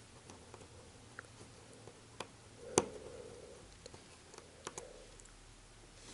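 Scattered small clicks and ticks of a precision Phillips screwdriver working the tiny screws inside an iPhone, with one sharper click about three seconds in.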